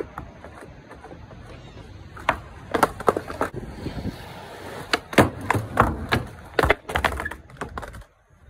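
Skateboard rolling on a flat deck, with a string of sharp wooden clacks as the board pops and lands: a couple about a third of the way in and a quick cluster in the second half. The sound cuts off suddenly near the end.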